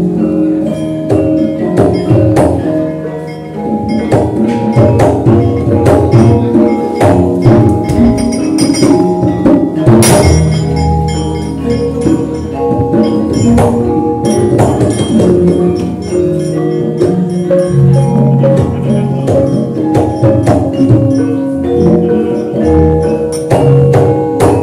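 Javanese gamelan ensemble playing a wayang accompaniment: struck metallophone notes and gong tones ringing in a steady rhythm, with sharp knocks scattered through it.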